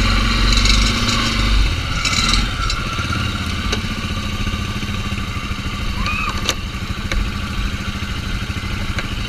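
Can-Am Outlander 450 ATV engine running steadily, a little heavier for the first two and a half seconds before settling into an even idle, with a few light clicks.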